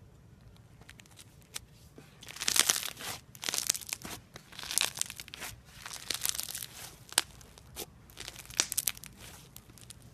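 Crunchy slime being squeezed and pressed by hand, crackling in several bursts that start about two seconds in, with a few faint clicks before them.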